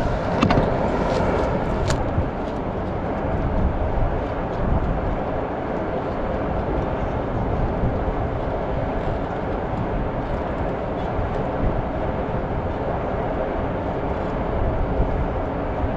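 Steady wind buffeting the microphone, a dull rumbling noise, with a couple of sharp clicks in the first two seconds.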